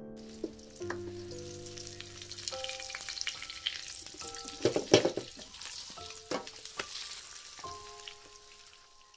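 Egg and sliced onion omelet sizzling as it fries in hot oil in a wok, with a wooden spatula scraping and knocking against the pan; the loudest scrapes come about halfway through.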